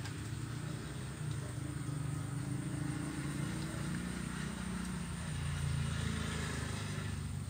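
Motor vehicle engines running on the road, a steady low hum whose pitch drifts slowly, a little louder near the end.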